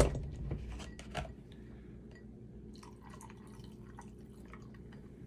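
Orange juice poured from a carton into a mixing glass over ice: a quiet trickle and drip. A sharp knock at the start is the loudest sound, with a smaller knock about a second in.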